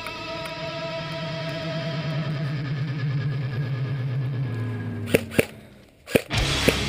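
Background music: sustained electric guitar with effects and distortion, broken by a few sharp hits and a brief drop in level near the end before the music comes back.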